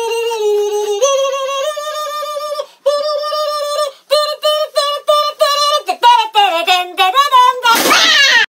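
A high-pitched singing voice carries a melody, a few held notes giving way to a quick run of short staccato notes. A brief noisy cry near the end, then it cuts off suddenly.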